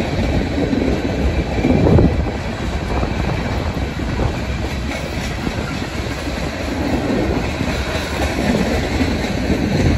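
Tank cars of a freight train rolling past, a steady rumble of steel wheels on the rails with louder surges about two seconds in and again at the end.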